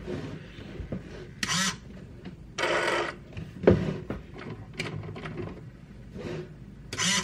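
TWOLF TW-715 RC crawler's electric drivetrain whirring, with several short, louder mechanical whirs as its servos shift the differentials into lock.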